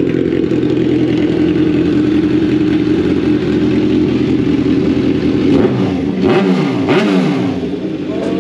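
Kawasaki Ninja 1000's inline-four engine idling through an Austin Racing full-system aftermarket exhaust, very loud. About six seconds in it gets two quick blips of the throttle, the pitch rising and falling each time, then drops back to idle.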